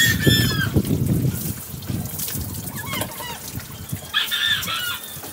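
Water poured from a dipper over a dog, splashing and dribbling onto a concrete floor, loudest in the first second or so. A few short high-pitched calls come through, the clearest near the end.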